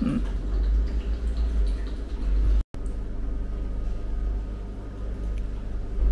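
Faint water sounds from a sheet of rice paper being soaked in a glass bowl of water, over a steady low rumble.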